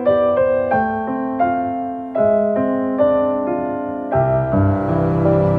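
Background piano music, single notes and chords struck and fading away; about four seconds in, a fuller held accompaniment with a low bass joins.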